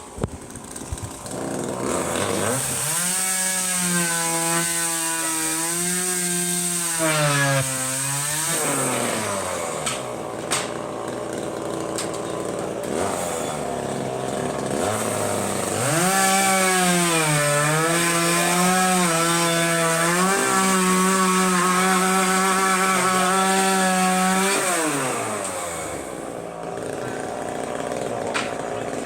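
A small engine revs up twice, holding a high droning pitch for several seconds each time before it winds back down, with a lower running sound in between.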